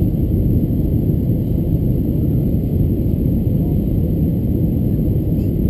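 Steady low rumble of an Airbus A321-200's cabin on descent, heard from a window seat over the wing: engine and airflow noise.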